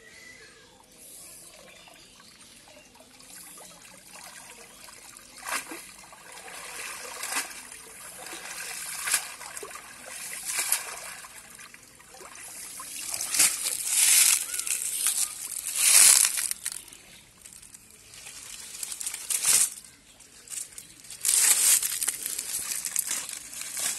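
Pond water splashing, sloshing and dripping as a wet cast net is gathered and hauled out by hand, with repeated louder splashes from about five seconds in, the loudest in the middle.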